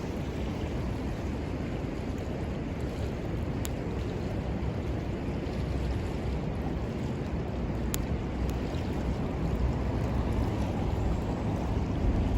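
Steady rush of river water with wind rumbling on the microphone, and a couple of sharp pops from the burning wood of a campfire about four and eight seconds in.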